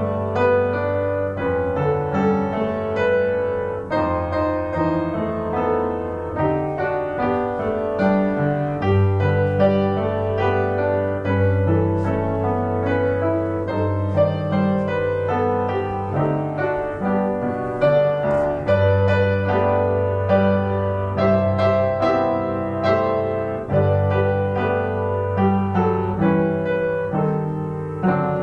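Piano music: a line of higher notes over long-held low bass notes.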